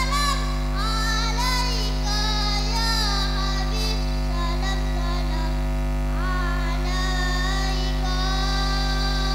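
Children's voices and a woman's voice singing an Islamic sholawat melody through microphones and a sound system, over a steady low hum.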